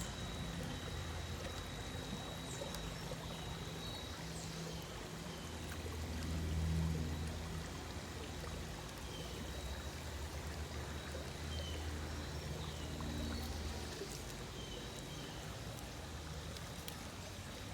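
Cordless handheld pool vacuum running in pool water: a steady low motor hum and the rush of water being drawn through it, with a faint high whine. The hum swells louder about six seconds in and again around the middle.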